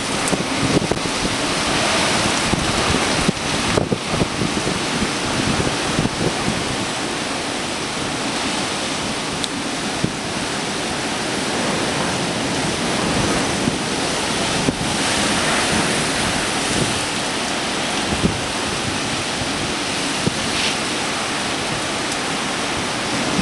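Typhoon wind and driving rain in a continuous rushing noise, with a few stronger gusts rising out of it.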